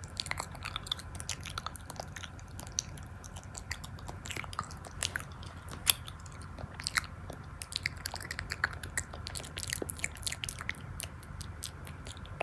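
Close-miked chewing of crisp, crunchy food, with sharp irregular crackles of bites and crunches.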